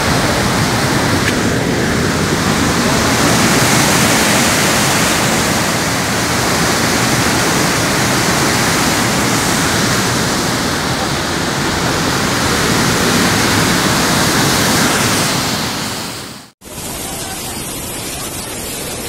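Loud, steady rush of floodwater churning out of a dam's open spillway. Near the end it cuts off abruptly and a softer, steady rush of a swollen, muddy flood river takes over.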